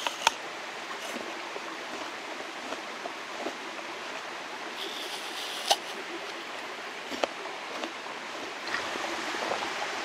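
Mountain stream flowing with a steady rush of water. Over it come a few short, sharp crunches close to the microphone as an apple is bitten. The loudest comes just after the start, and two more come later on.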